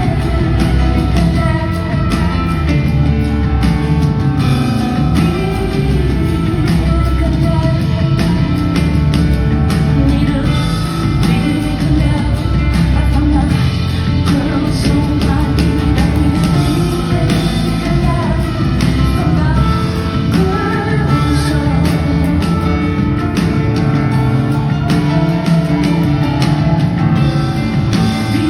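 Live rock band performance with a woman singing, bass-heavy, as heard from the audience of a concert hall.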